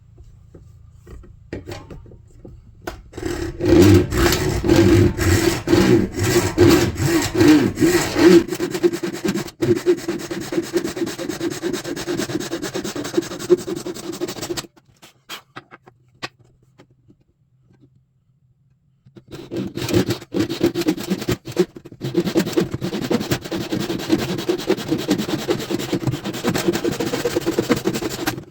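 Hand saw cutting through deer antler in rapid back-and-forth strokes. It stops for about four seconds midway, then starts again.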